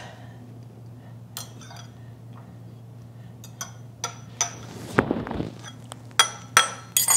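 Metal fork clinking against a small ceramic bowl while prodding and lifting rehydrated potato slices: scattered sharp taps, the loudest few in the last two seconds, with a brief soft rustle about five seconds in.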